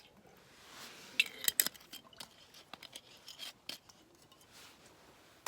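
Glass clinks and clicks as a shochu bottle and drinking cup are handled: a cluster of sharp clinks with a brief ring about a second and a half in, then lighter ticks.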